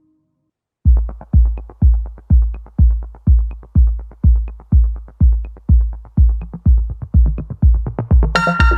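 Electronic background music: after a moment of silence, a kick drum starts about a second in and beats steadily about twice a second. A synth chord comes in near the end.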